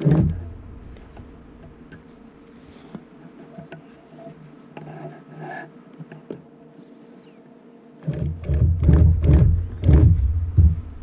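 Longarm quilting machine handled and moved on its frame: a sharp knock at the start, a quiet stretch, then from about eight seconds in several seconds of irregular low rumbling and knocking.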